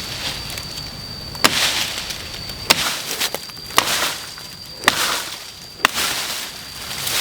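Repeated sharp chopping strikes, about one a second and unevenly spaced, several of them followed by a brief swish: a hand tool chopping wood.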